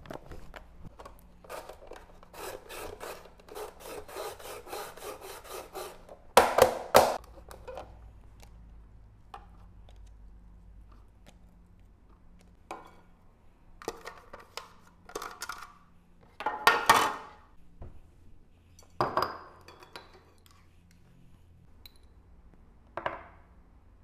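A raw potato being grated on a handheld plastic grater: a quick run of rasping strokes, about five a second, followed by scattered louder knocks and clatter of plastic kitchenware.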